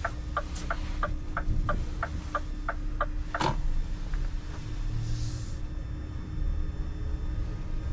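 Inside the cab of a fully electric refuse truck rolling slowly: a steady low hum and road rumble, with no engine running. Turn-signal ticking at about three ticks a second stops with a sharp click about three and a half seconds in. A brief hiss follows about five seconds in.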